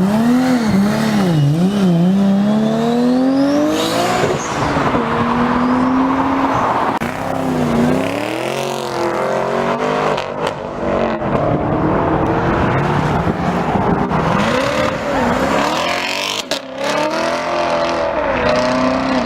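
High-performance car engine revving and accelerating, its note climbing and dropping back again and again as it goes through the rev range and gears, with a short sharp break about three-quarters of the way through.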